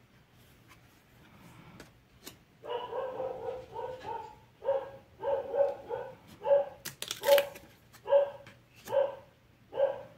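A dog barking repeatedly, starting about two and a half seconds in, at roughly one to two barks a second.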